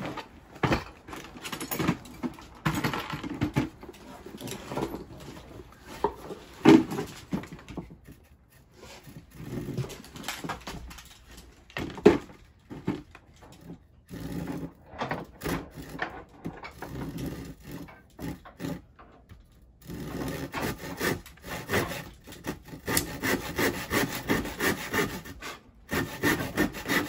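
Handsaw cutting through a 2x4 by hand, back-and-forth strokes that become quick and regular over the last several seconds. A couple of sharp wooden knocks stand out about seven and twelve seconds in.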